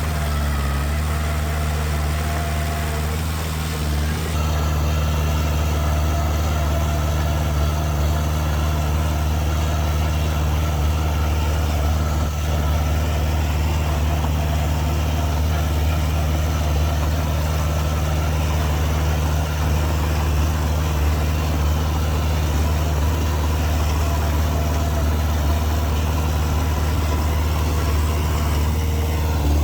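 Heavy machinery's diesel engine running steadily at a low idle-like note, with a slight change in its sound about four seconds in.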